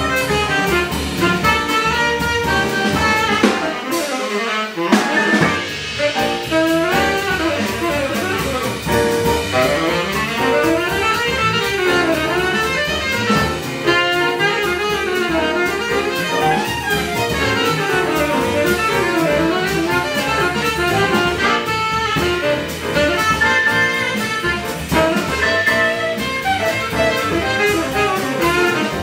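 Jazz quintet playing, with a saxophone line winding over the drum kit. The low end drops out briefly about four seconds in.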